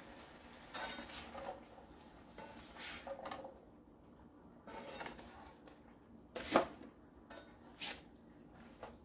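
Cooking utensils and cookware clinking and scraping against a pot: a string of separate clatters, the sharpest about six and a half seconds in.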